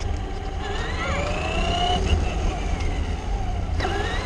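Traxxas RC car's motor whining, its pitch rising as the car speeds up, over a heavy low rumble of wind and road vibration on the car-mounted camera.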